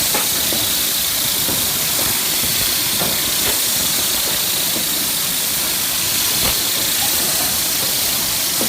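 Steady loud hiss of running industrial machinery over a low rumble, with a few faint clicks.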